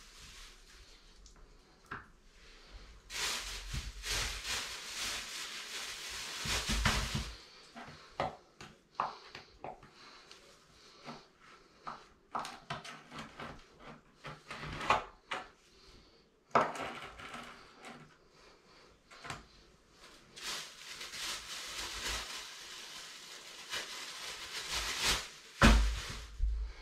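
Hand-tool work at a toilet flange on a tiled floor: two long spells of scraping with a metal scraper, one about three seconds in and one from about twenty seconds, with scattered clicks, knocks and clinks of tools in between and a louder thump near the end.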